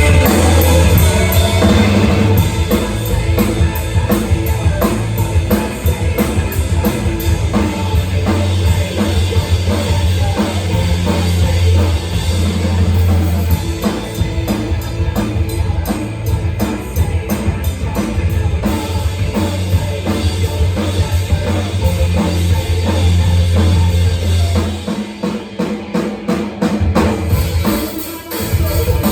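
Rock music with a full drum kit playing a steady beat of bass drum, snare and cymbals over a sustained low bass line; the low bass drops out near the end.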